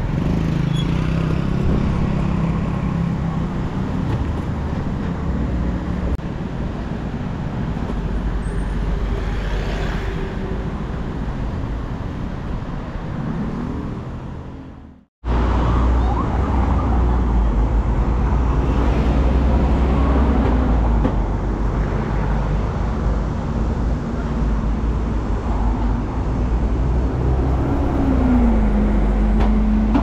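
City street traffic: cars running and passing with a steady low rumble. About halfway through, the sound fades out to a brief silence, then the traffic noise starts again abruptly.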